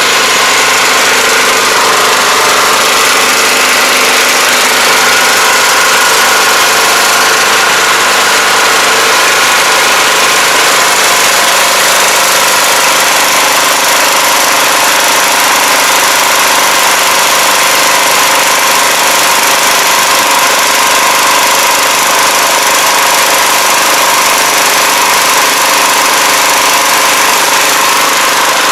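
Small-engine pressure washer running steadily, with the hiss of its high-pressure water jet.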